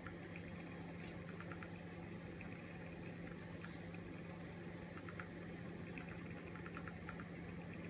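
Faint steady low hum, with soft rustling twice, about a second in and again past three seconds, as a sewing needle and yarn are drawn through crocheted fabric.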